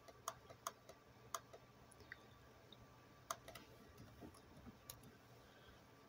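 Faint, irregular clicks of a computer mouse and keyboard: a few clicks in the first second or so, then a quick run of keystrokes in the second half.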